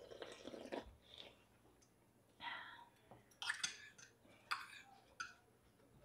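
Close-up eating sounds: a slurp of soup from a bowl at the start, then chewing noises and a few short utensil clicks on bowls.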